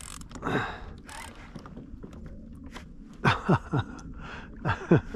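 A man's short strained grunts of effort, a few in quick succession about three seconds in and again near the end, each dropping in pitch, as he pulls against a heavy fish on a bent fishing rod.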